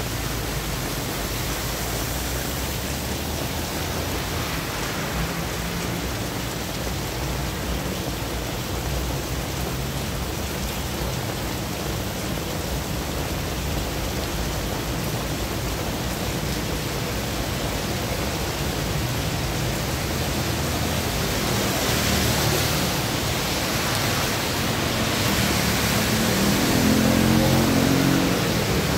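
Heavy rain falling steadily on a wet road. Vehicles pass through the wet with tyres hissing, once about two-thirds of the way in and again near the end, when motorbikes and a car go by with a low engine hum.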